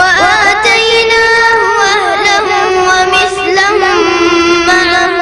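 A boy's voice reciting the Quran in melodic tajweed style. He starts abruptly and draws the words out in long, wavering, ornamented notes.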